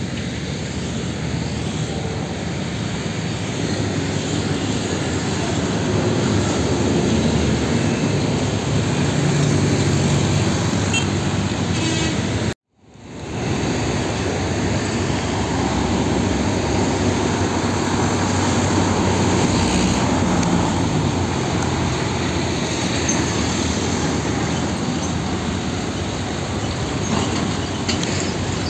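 Diesel trucks driving past on a road: steady engine noise and tyre rumble from container trucks and a fuel tanker. The sound cuts out for a moment a little before halfway, then the traffic noise picks up again.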